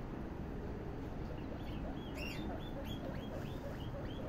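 Guinea pigs squeaking: one louder squeal about two seconds in, and a quick run of short, high squeaks, two or three a second, from about a second and a half in.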